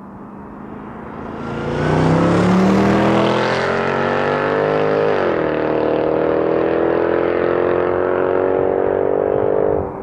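Mercedes-Benz C63 AMG's naturally aspirated 6.2-litre V8 accelerating hard: the exhaust note climbs in pitch, drops sharply at an upshift about five seconds in, pulls steadily again, then falls near the end.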